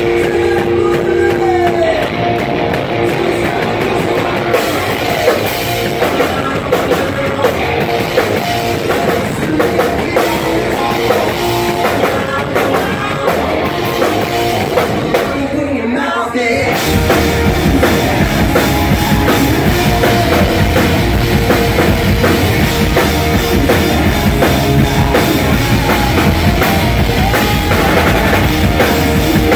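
Live rock band playing loud, with electric guitars, bass, drum kit and a singer. About halfway through the band drops out briefly, then comes back in with a heavier low end.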